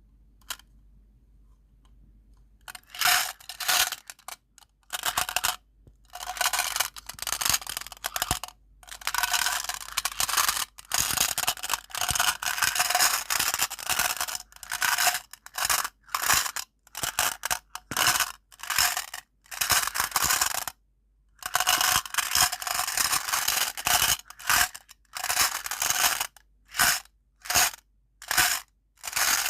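Dry scraping and tearing noises in repeated strokes, some short and some lasting a few seconds, with brief pauses between them.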